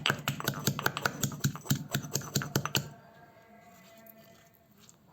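Garlic cloves and green chillies being coarsely pounded with a pestle: rapid, even strikes, about five a second, that stop about three seconds in.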